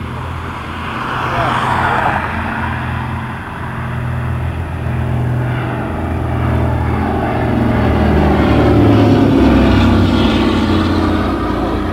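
Douglas C-47 Dakota's two Pratt & Whitney Twin Wasp radial piston engines and propellers droning on a low pass, growing louder to a peak about nine seconds in, then falling slightly in pitch as the aircraft goes by.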